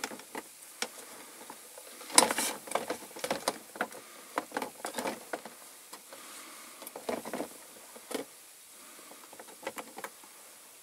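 Caustic soda solution in boiling water bubbling, with irregular small pops and crackles, as it works on the paint of the diecast parts.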